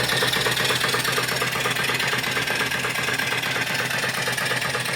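Cast-iron steam engine with a 3-inch bore and 4-inch stroke running steadily under steam, its exhaust and moving parts making a fast, even, rhythmic clatter. A hiss dies away in the first second.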